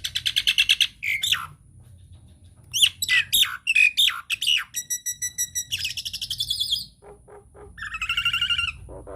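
Jalak nias myna calling in a fast, varied run: sharp whistles and sweeping notes, a rapid trill, and buzzy rattling phrases, with short pauses between bursts.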